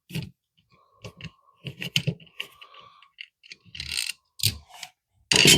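Plastic outlet spacers and a mounting screw being handled at an outlet box: an irregular run of small clicks and scrapes, with a louder clatter near the end.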